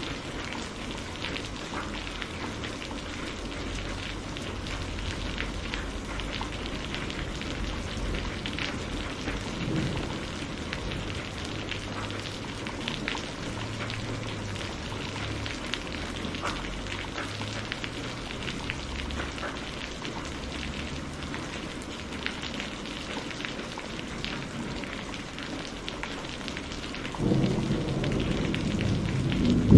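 Steady rain with scattered sharp crackles and a low background rumble of distant thunder. Near the end a louder roll of thunder builds.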